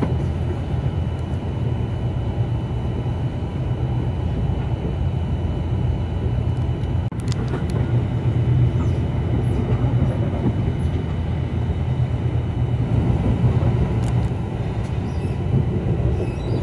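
Steady low rumble of a double-decker InterCity train running at speed, heard from inside the carriage, with a faint steady high tone over it. About seven seconds in there is a sharp click and a brief drop in level as another train passes alongside, and a few more clicks come near the end.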